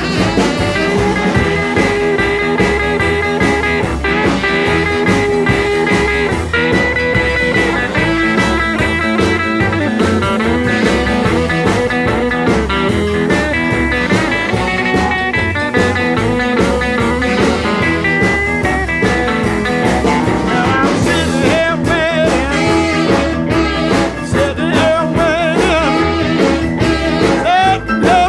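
Instrumental break of a blues rock and roll song: a band with a steady bass and drum beat under long held notes. Over the last several seconds a guitar plays wavering, bent notes.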